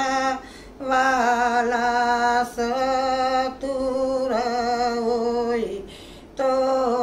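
A Gujarati devotional kirtan sung by a solo voice, holding long wavering notes with short breath breaks about half a second in and near the end; the pitch drops just before the second break.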